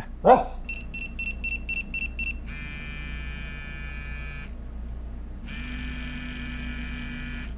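Electronic anti-bark collar going off: a quick run of about eight short high beeps, about four a second, then its vibration motor buzzing for about two seconds, stopping for a second, and buzzing again.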